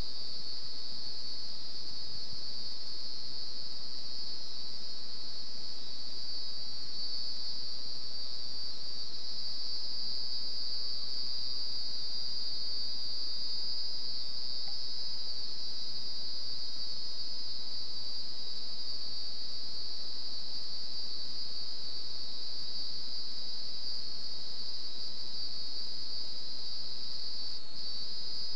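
Crickets chirping in a continuous high-pitched trill that holds steady without a break.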